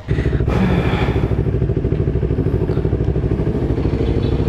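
Motorcycle engine idling steadily, starting abruptly at the outset and running with an even low throb.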